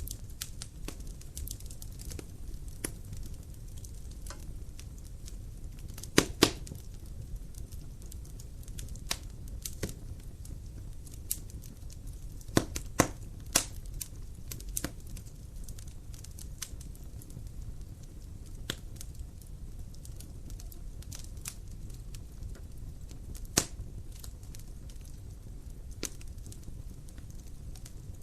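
Dry firewood burning in a fireplace: irregular sharp crackles and pops over a low steady rumble, with the loudest pops about six seconds in and a quick run of them around thirteen seconds.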